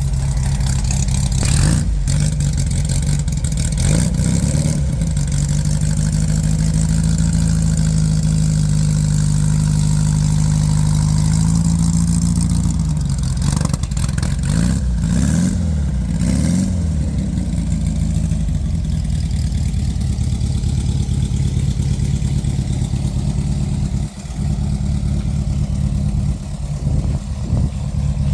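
An engine running steadily, its speed rising and falling a few times about halfway through before settling back to a steady run.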